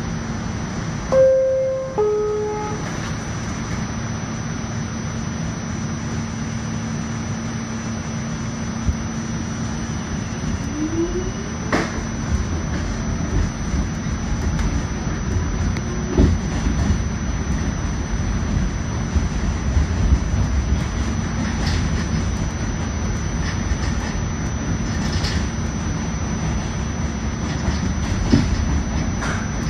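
R46 subway car's two-tone door chime, a higher tone then a lower one, about a second in. The train then pulls away: a short rising whine from the GE DC traction motors near the middle, then wheel-on-rail rumble with clicks over rail joints that grows as it gathers speed.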